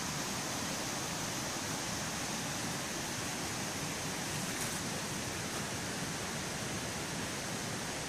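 Rushing water of a woodland stream, a steady even hiss without let-up.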